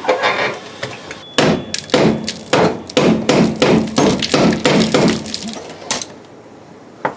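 A hammer strikes metal in a quick run of about fifteen blows, roughly four a second, each with a short metallic ring. It is working at a rusted, seized transmission mount bolt on a car's crossmember.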